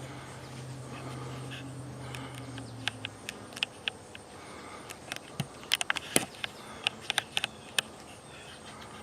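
Honeybees at an open hive humming steadily for about the first three seconds, then a scatter of short, sharp clicks, densest in the middle.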